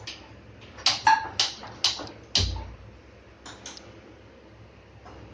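Gas stove being lit: a quick run of about six sharp igniter clicks, the last with a low thump as the burner catches, then two fainter clicks.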